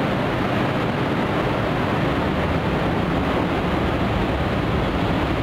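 Manila LRT Line 1 first-generation (1G) light rail train pulling out of the station and running past close by. Its cars make a steady, even running noise with no distinct knocks or tones.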